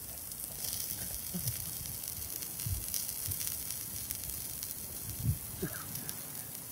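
Butter-fried salmon fillets sizzling steadily on a small metal plate over a gas-canister camp stove, which the cook suspects is starting to stick and scorch. A few dull low thumps sound over it, the loudest about five seconds in.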